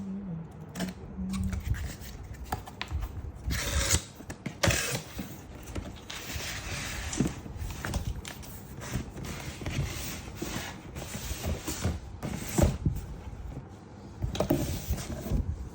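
A cardboard sneaker box being handled and opened: irregular rustling and scraping with scattered knocks and clicks, the loudest knock about three-quarters of the way through.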